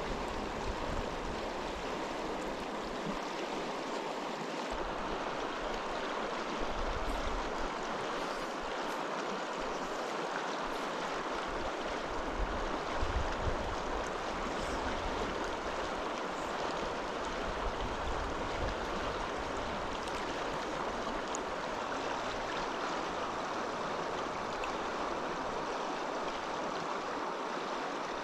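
Mountain trout stream running steadily over rocks, a constant wash of rushing water, with low rumbles coming and going beneath it.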